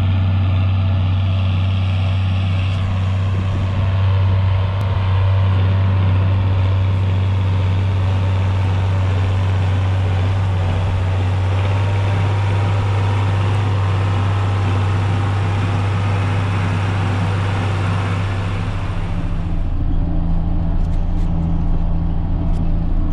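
John Deere tractor engine running at a steady speed, a deep even drone. Near the end the higher hiss drops away and a second, higher engine tone comes up.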